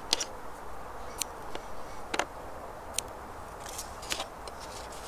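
Scattered small clicks and crinkles of double-sided sticky tape and card being handled, the tape pulled and torn for the craft.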